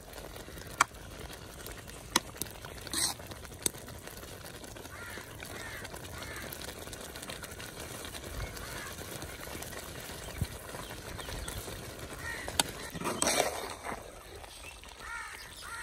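Metal skimmer stirring and scraping rice in a large aluminium pot of bubbling matar pulao, with several sharp clinks of metal on the pot, as the last of the cooking water boils off. Faint honking of poultry now and then.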